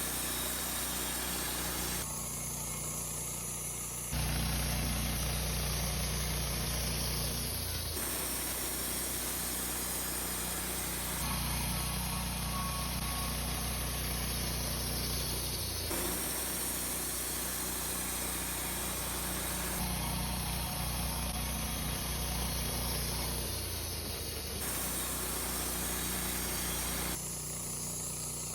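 Wood-Mizer LT15 band sawmill running and its band blade sawing cedar flitches, heard in a string of short clips joined by abrupt cuts. Every few seconds the sound steps between a lighter running sound and a heavier, louder rumble.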